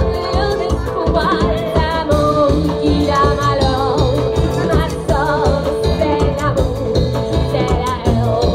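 Live band playing a bright, upbeat song: a woman sings a melody with vibrato over a sousaphone bass line and drum kit beat.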